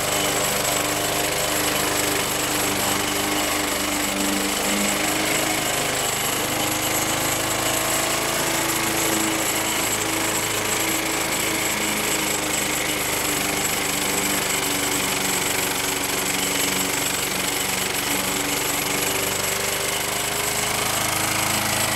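Walk-behind lawn mower's small single-cylinder gasoline engine running steadily under its own power, fed on gasoline vapor from a bubbler-type vaporizer instead of liquid fuel.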